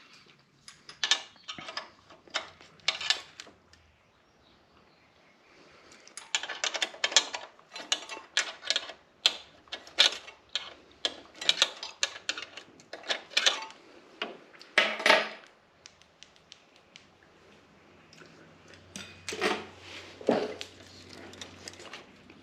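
Hand tools clicking and clinking against small metal fasteners and trim while a screw and nut are worked loose. The clicks are irregular, with quick runs of them here and there.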